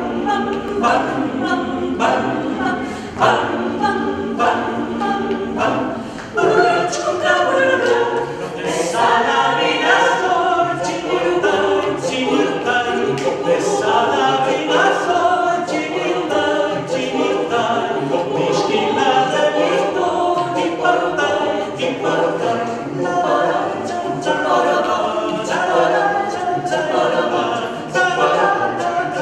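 Mixed choir of men's and women's voices singing a cappella in harmony.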